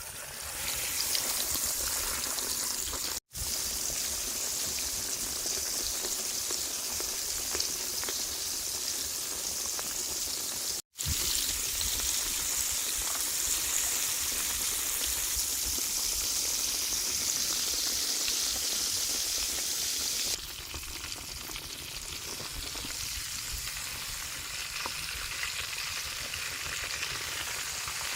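Tempura-battered squid sizzling as it deep-fries in hot cooking oil, a steady hiss. It cuts out briefly twice and gets a little quieter about twenty seconds in.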